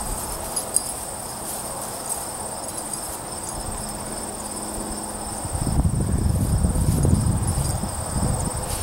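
Crickets trilling in a steady, high-pitched chorus. A louder low rumbling rustle comes in a little past the middle and lasts about three seconds.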